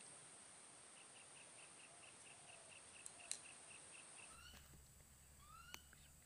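Near silence with faint bird calls: a thin chirp repeated evenly about five times a second, then a few short rising chirps, with a single small sharp click in the middle.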